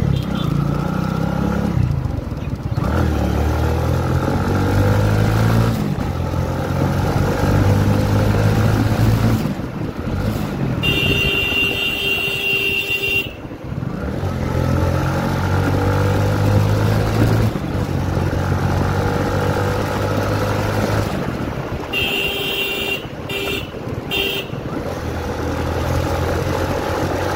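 Motor scooter engine running under way, its pitch rising and falling as the rider speeds up and eases off. A vehicle horn sounds once for about two seconds near the middle, then several short honks follow near the end.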